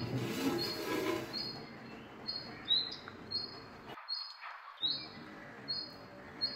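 A small bird chirping over and over, short high chirps about every two-thirds of a second, some dipping slightly in pitch. Beneath them runs a low rustling noise that stops briefly about four seconds in.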